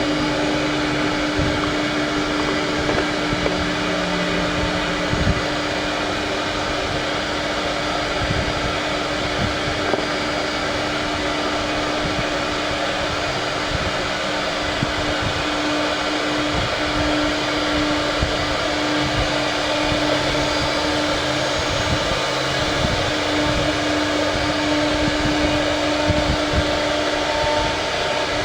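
A woodworking power machine running steadily: a constant whir with a steady hum tone that stops shortly before the end.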